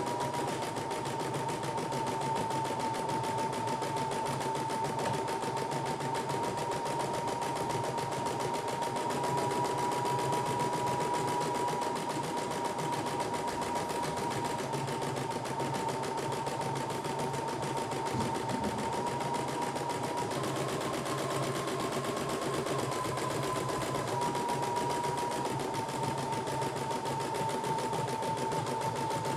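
CNY E960 computerized embroidery machine running steadily, stitching out an embroidery design in its hoop. Its steady high hum steps slightly up and down in pitch a few times.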